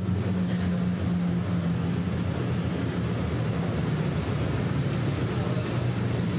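Interior noise of a moving electric suburban train: the steady rumble of the running gear, with a low hum and a thin, steady high-pitched whine.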